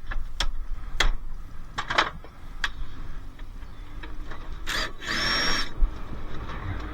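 Hand tools knocking and clanking on a dishwasher's metal parts as it is stripped for scrap: a run of sharp, separate knocks, then a short, harsh burst of noise about five seconds in.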